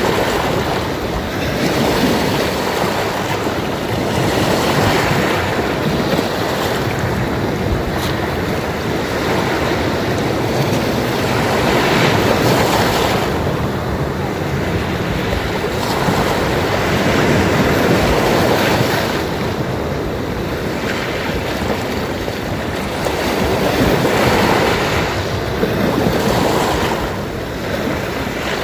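Sea waves washing in and breaking on the shore, a continuous wash of surf that swells and ebbs every few seconds.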